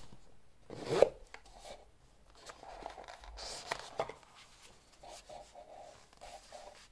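Hands opening a watch box and lifting the watch out on its foam pillow: rubbing and rustling with scattered clicks, a sharp one about a second in.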